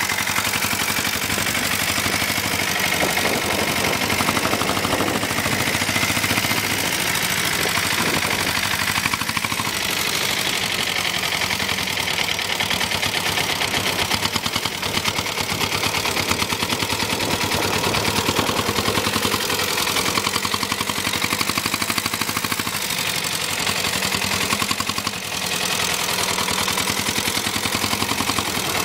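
Lombardini 325 cc single-cylinder diesel engine of a converted Royal Enfield Bullet motorcycle running steadily, a rapid, even beat of firing strokes.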